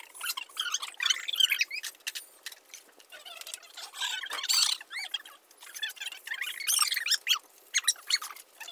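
A hand trowel or plastering float working a porch ceiling: a fast, irregular run of short scrapes and squeaks as the tool drags over the surface.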